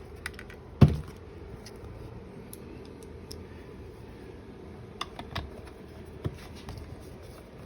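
A single sharp knock a little under a second in, then a few light clicks and taps, over a steady low hum: hands handling the plastic and covered parts of a Jeep console armrest lid during reupholstering.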